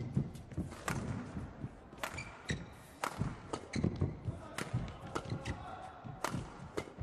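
Badminton rally: sharp racket strikes on the shuttlecock every second or so, with thudding footwork and short shoe squeaks on the court floor.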